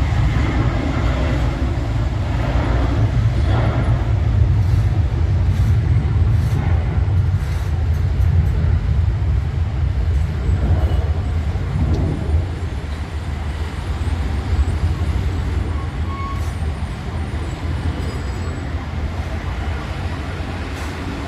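Airliner's jet engines at takeoff power: a loud, steady low rumble that slowly fades in the second half.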